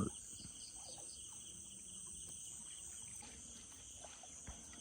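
A steady, faint chorus of night insects shrilling, with one soft tap near the end.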